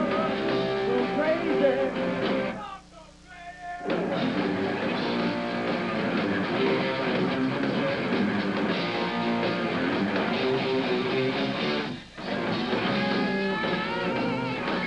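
Hard rock music led by electric guitar. It drops away for about a second and a half around three seconds in, and cuts out for a moment near twelve seconds before carrying on.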